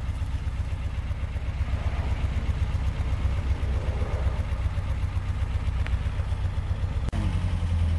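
Fiat 125p's 1.3-litre four-cylinder petrol engine idling steadily, with a brief dip about seven seconds in, after which the low hum is stronger.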